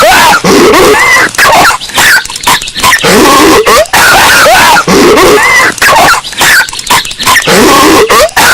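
Patrick Star's cartoon voice coughing and hacking over and over in a loop, boosted so loud that it clips and distorts.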